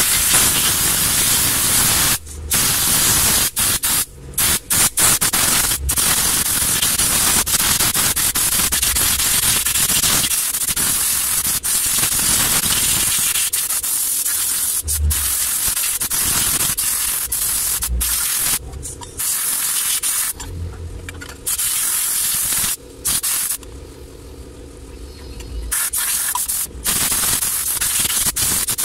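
Compressed-air solvent spray gun hissing in long bursts with many short breaks as the trigger is worked, washing cleaner over the oil-soaked front of an engine.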